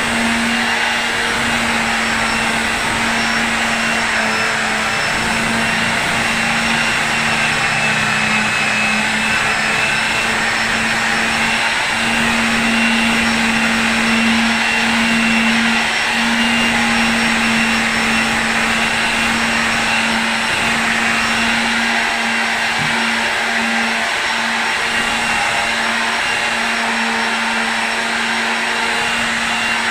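A small high-speed electric motor running steadily, with a constant hum over a wide hiss. The hum briefly falters now and then.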